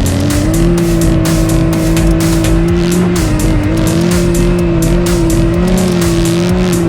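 Can-Am Maverick X3 side-by-side's turbocharged three-cylinder engine running at steady high revs under way, its pitch rising a little about half a second in, with music playing over it.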